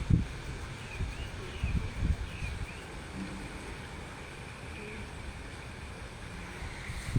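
Wind buffeting the microphone in irregular low gusts, strongest in the first couple of seconds.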